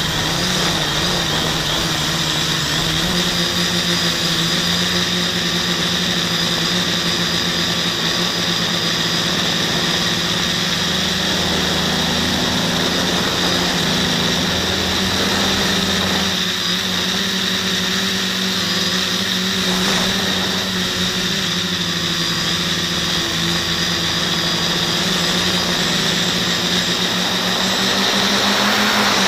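Quadcopter's four Suppo 2212 brushless motors spinning 9x5 propellers in flight: a steady buzzing hum whose pitch wavers slightly, getting a little louder near the end.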